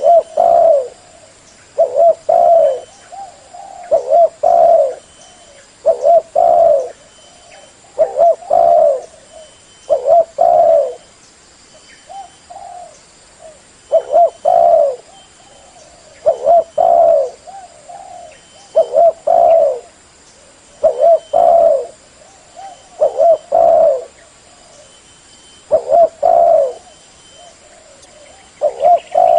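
Spotted dove (terkuku) cooing loudly: a short phrase of two or three low coos, repeated about every two seconds, with one longer pause partway through.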